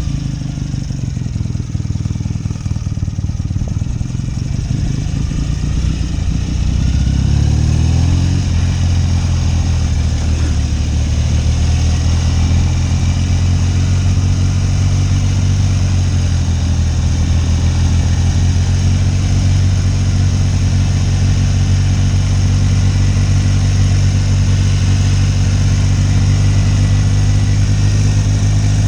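1972 BSA Lightning's 650 cc parallel-twin engine running under way. The revs climb about seven seconds in, then it settles into a steady, loud run at a constant speed.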